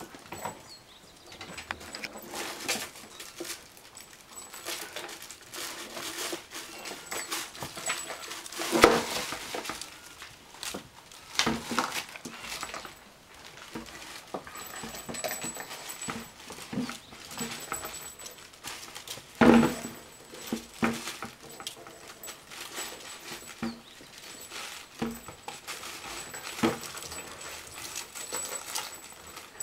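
Kittens playing and wrestling in a wicker basket: their claws scratch and rustle the woven wicker, and their paws scrabble on the wooden floor. Short knocks and bumps come throughout, with the louder ones about 9 and 19 seconds in.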